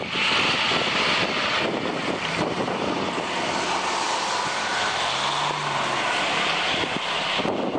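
Off-road Jeeps' engines running hard as a Jeep Wrangler tows a Jeep Grand Cherokee up a muddy, grassy slope on a recovery strap: a steady, dense rushing drone, a little louder in the first second or so.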